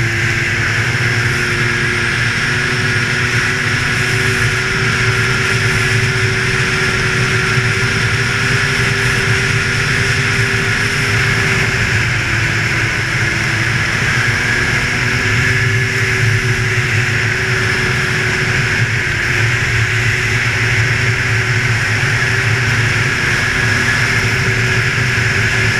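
Polaris Indy 500 snowmobile's two-stroke twin engine running steadily at trail cruising speed. The engine pitch dips briefly about halfway through, then comes back up.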